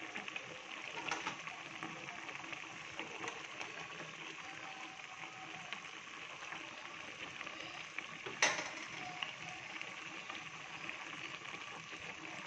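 Vegetable stew bubbling at a gentle boil in a stainless steel pot and stirred with a spoon, with a sharp knock about two-thirds of the way through.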